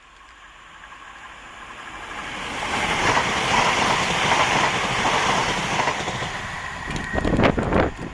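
Train approaching and passing close by: the rumble of the train on the rails builds over the first three seconds and stays loud, with a few heavier low thumps near the end.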